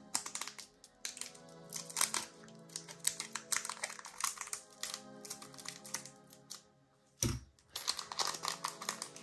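Scissors snipping through the foil wrapper of a trading-card booster pack in a run of short, quick clicks, then the wrapper crinkling as it is pulled open near the end.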